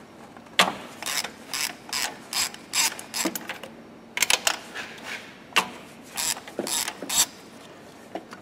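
Ratchet wrench with a long spark-plug socket clicking in short irregular runs as the spark plugs are unscrewed, with a brief pause about halfway.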